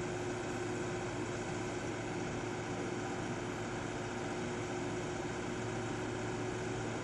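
Construction machinery engine running steadily, an even hum with a constant tone.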